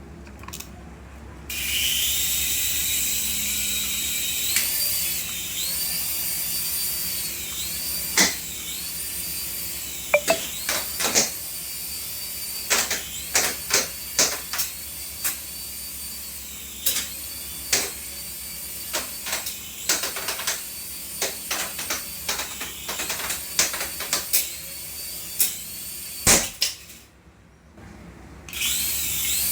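Small electric motor of a remote-control toy whining at high pitch, its speed repeatedly rising and falling with the throttle. Many sharp clicks and knocks come through the middle stretch. The motor stops briefly near the end, then starts again.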